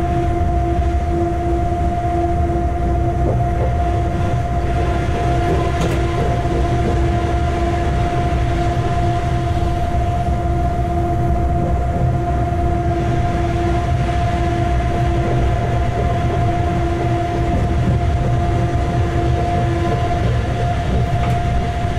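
Locomotive running light along the track, heard from inside its cab: a steady low running rumble with constant humming tones over it.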